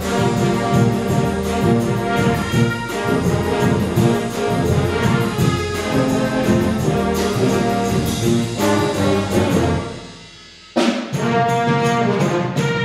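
Wind orchestra of brass, saxophones, clarinets and flutes playing together. About ten seconds in the music fades away, and after a short pause the full band comes back in suddenly and loudly.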